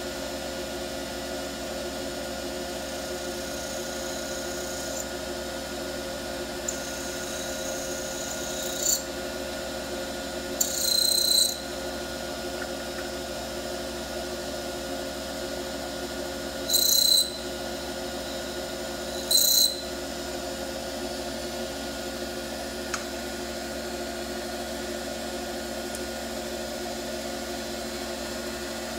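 Small jewellery lathe running steadily while its internal finishing tool cuts the inside of a sterling silver ring, giving the anatomical inner profile. Several short, high-pitched screeches come as the cutter bites, the three loudest between about ten and twenty seconds in.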